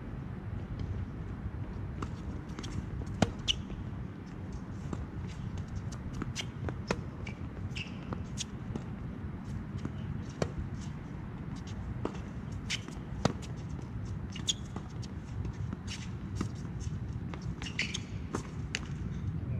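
Tennis rally on a hard court: the ball is struck by rackets and bounces in sharp knocks every second or so, with shoes scuffing on the court, over a steady low background rumble.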